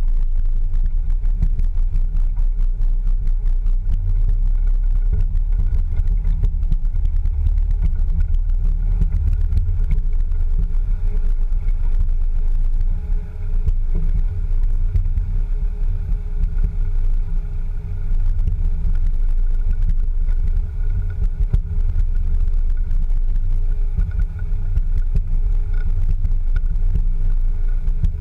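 Land Rover Discovery 2 driving slowly over gravel, heard from low on its rear bumper: a steady, loud low rumble of drivetrain, tyres and wind buffeting the microphone, with a faint steady hum above it and small ticks of stones under the tyres.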